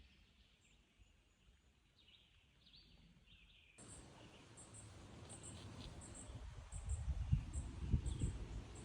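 Faint songbird chirps in a quiet woodland. About four seconds in, a steady hiss comes in suddenly, and an uneven low rumble, typical of wind on the microphone, grows louder toward the end.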